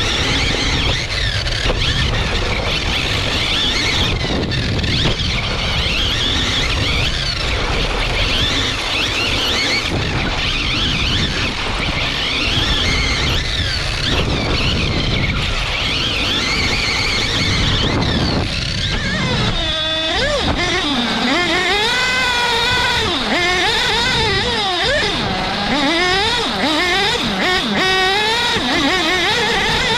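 Onboard sound of an Agama A319 1/8-scale off-road RC buggy at speed on a dirt track. Its motor's pitch rises and falls with the throttle over steady tyre and wind noise, with wide swings in pitch through the second half.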